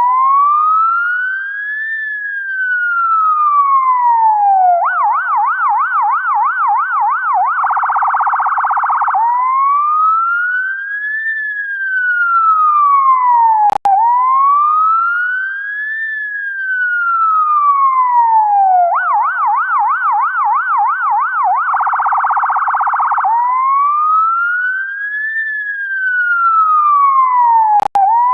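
UK ambulance siren cycling through its tones: a slow wail rising and falling, then a fast yelp of about three warbles a second, then a rapid buzzing phaser for a second or so, and back to the wail. The whole cycle comes round twice, each time ending in a brief break.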